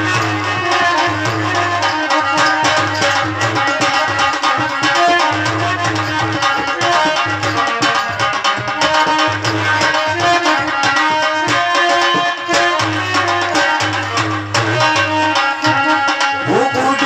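Live Indian folk devotional music played without singing: hand drums keep up a fast, steady rhythm under a harmonium melody of held notes.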